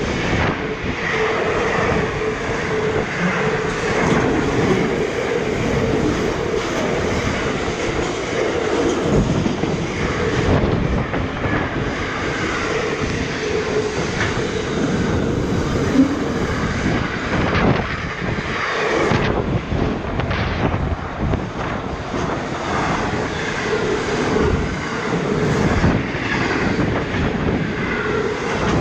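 Container wagons of a freight train rolling past close by: a steady, loud rumble of wheels on rail with irregular clatter and a wavering metallic whine from the wheels.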